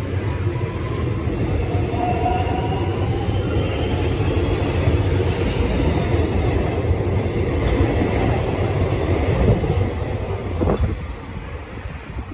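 Metro X'Trapolis electric train running on the rails: a steady rumble of wheels with the motor whine shifting in pitch, dropping off about eleven seconds in.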